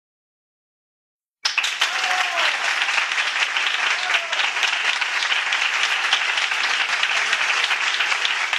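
Silence, then about a second and a half in a crowd starts applauding, a steady dense clapping.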